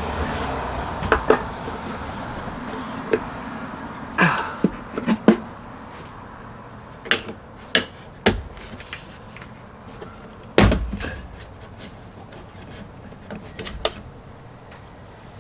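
Irregular knocks, taps and clatter of hands working with tools and wooden or plastic parts, the loudest knock about ten and a half seconds in. A steady low noise fades away in the first second or two.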